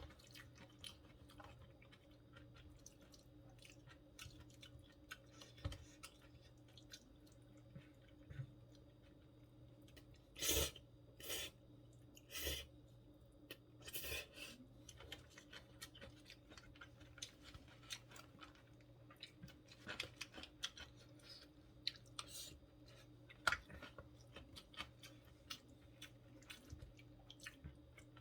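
Close-miked chewing and wet mouth sounds of someone eating stir-fried gopchang with vegetables. There are short, louder bursts a few times in the middle and once near the end, over a faint steady hum.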